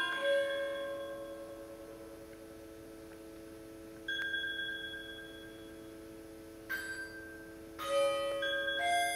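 Music box built into a galvanized zinc bucket, plucking sparse bell-like notes and chords that ring on. One note comes at the start, another about four seconds in, and another near seven seconds, then a quick cluster near the end. All of it sits over a steady held tone.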